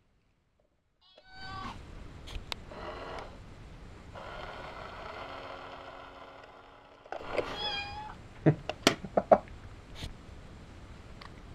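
Itazura cat coin bank toy set off: a short recorded meow, then the toy's small motor whirring steadily for about three seconds as the paw comes out of the lid, then another meow. Several loud, sharp clicks and knocks follow near the end.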